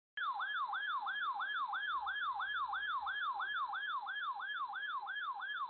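Electronic siren-style alert tone, a rapid yelp sweeping down and back up about three times a second, played as the warning alarm of a weather radio test broadcast.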